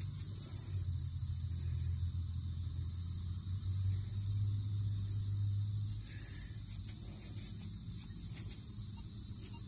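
Steady high-pitched chorus of crickets, with a low steady hum underneath that eases off about six seconds in.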